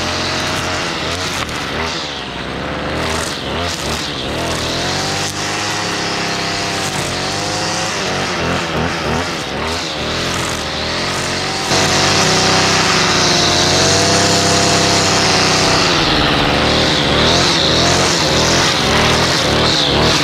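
Stihl FS55R string trimmer's 27.2cc two-stroke engine running under the throttle, its pitch rising and falling again and again. It gets louder about twelve seconds in.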